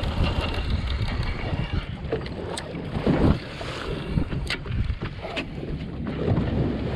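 Wind buffeting the microphone on a small boat at sea, with water sloshing around the hull, a few sharp clicks and a louder rush about three seconds in.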